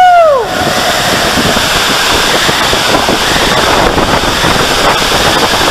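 Water rushing through an enclosed tube water slide as a rider's inner tube slides down it, a steady loud rush. Right at the start, a brief rising-then-falling whoop from a rider.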